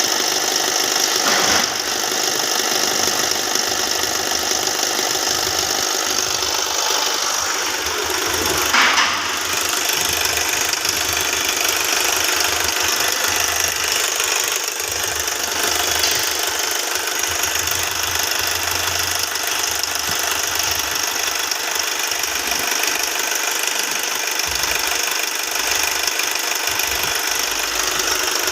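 Hyundai Venue engine running steadily with the noise the owner takes for a noisy timing chain. Briefly louder about nine seconds in.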